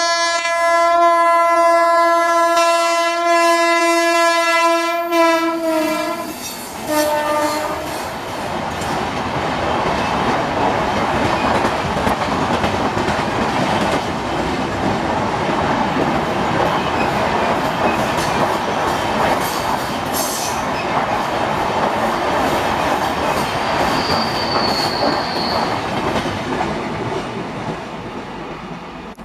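Indian Railways electric locomotive sounding its horn as it approaches, in one long blast of about six seconds and then a short second blast. Its passenger coaches then rush past with steady rail clatter and wheel noise, a brief high squeal about three-quarters of the way through, and the sound fades as the train goes by.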